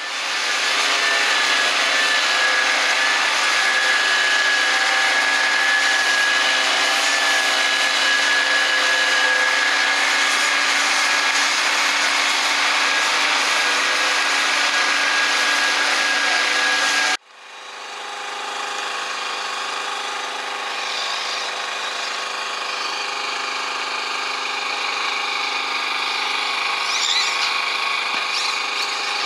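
A handheld leaf blower running steadily at constant throttle, which cuts off suddenly about 17 seconds in. After that comes the high buzz of nitro RC buggy engines racing, rising and falling in pitch near the end.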